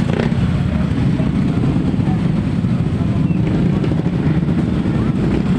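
Steady low rumble of vehicles on the move: engine and road noise.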